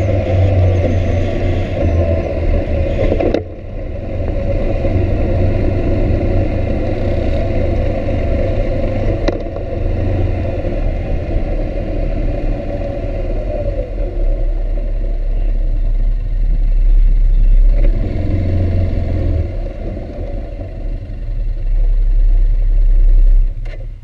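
Engine of a small open vehicle running as it is ridden, with wind rush. It drops off suddenly about three and a half seconds in, builds again in the later part, and falls away sharply just before the end.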